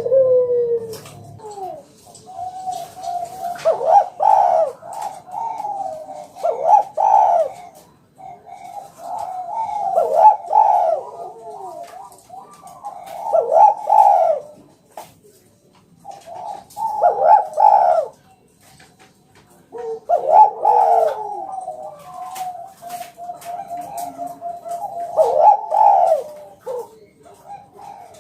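Spotted dove (tekukur) cooing: repeated phrases of low, soft coos with brief pauses between them, about five phrases in all, one of them ending in a quick rolling run of notes.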